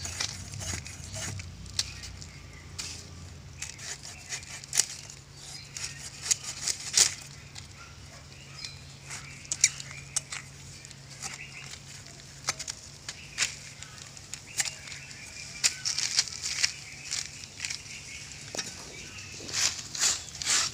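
Eels being cut on an upright boti blade: irregular scraping, clicks and soft knocks as the fish are pulled against the blade, with denser bursts of scraping now and then.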